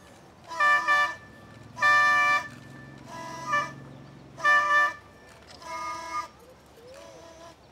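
A small hand-held wind instrument blown in a series of about five short, horn-like toots, each a second or less, some louder and some softer.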